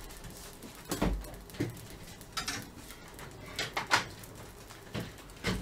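Scattered short knocks and clicks of things being handled in a kitchen, with a low thump about a second in.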